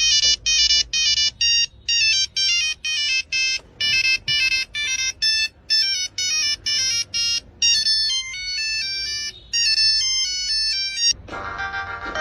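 Classic 1990s-style mobile phone ringtone: a fast run of short, high-pitched electronic notes in repeating phrases, giving way about eleven seconds in to a lower, fuller tune.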